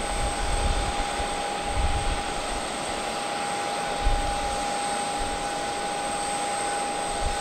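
Parked jet aircraft's auxiliary power unit running steadily: a constant whine over an even rush, with irregular low rumbles underneath.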